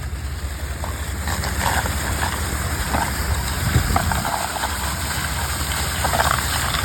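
Water rushing out of a fire hydrant being opened: a steady gushing noise with a low rumble, growing slightly louder over the first couple of seconds.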